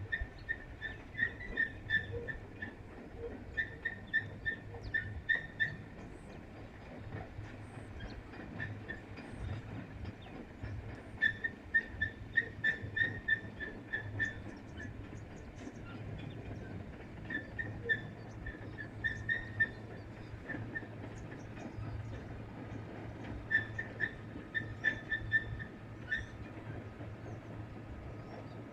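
Animal calls: short high-pitched chirps repeated several times a second, in bouts of about two seconds with pauses between, over a low steady hum.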